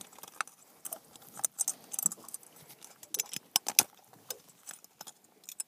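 Long metal unhooking pliers clinking against a lure's hooks and hardware as they are worked free from a pike's mouth: irregular sharp metallic clicks and jangles.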